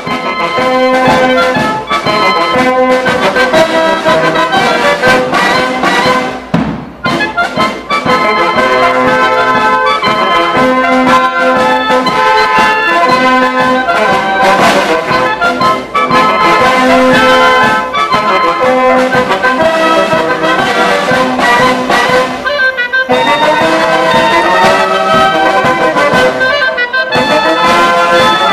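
Military wind band playing a piece together: trumpets, saxophones and clarinet over a snare drum, with a brief pause about seven seconds in.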